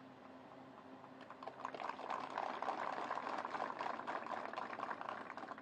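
Audience applauding, fairly faint: the clapping builds about a second and a half in, holds steady, and eases off near the end.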